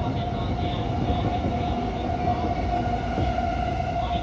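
Seibu 2000-series electric commuter train running, heard from the driver's cab: a steady rumble of wheels on rail with a steady high whine held throughout.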